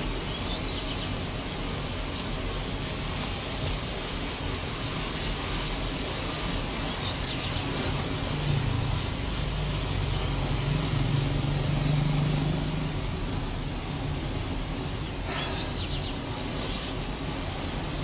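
Steady rush of fast-flowing brown floodwater. A low drone swells for a few seconds in the middle.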